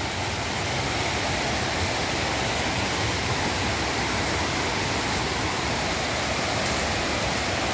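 Steady rushing of a fast, white-water forest river running high after heavy rain.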